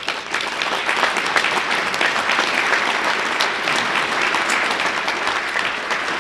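Audience applauding: many hands clapping at once, breaking out suddenly and holding steady.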